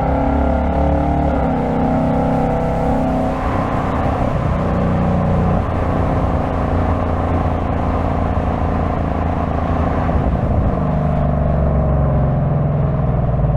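2025 Ford Mustang GT's 5.0-litre V8 running on the move. Its pitch holds steady, then steps to a new level a few times across the stretch.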